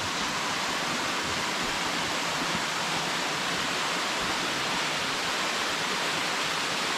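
Dog Stream Falls, a 41 m waterfall, pouring: a steady, even rush of falling water.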